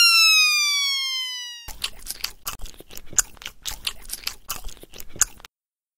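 A cartoon falling-whistle sound effect fades out, and then a crunchy munching sound effect begins: a rapid run of crisp bites at about four a second, the sound of an animal character eating. The crunching stops shortly before the end.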